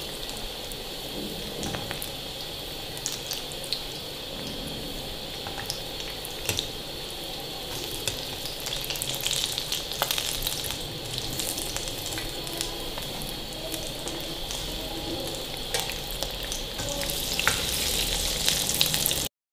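Aloo tikki, potato patties coated in gram-flour batter, deep-frying in hot oil: a steady sizzle with scattered crackles, as a wire skimmer turns them in the pan. The sizzle grows louder near the end, then cuts off suddenly.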